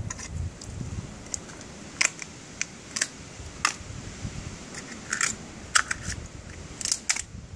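Knife blade clicking and scraping against a razor fish's thin shell as it is prised open, with shells knocking together in the basket: a string of sharp clicks, about one a second.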